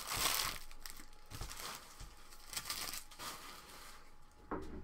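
Crinkling of a trading-card pack's foil wrapper being handled, loudest in the first half-second and again about two and a half seconds in.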